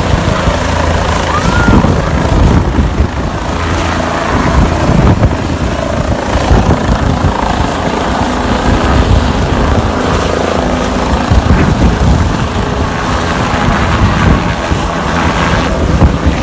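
Helicopter in flight, its rotor and engine running with a loud, steady, fluttering noise, as heard by a passenger on board.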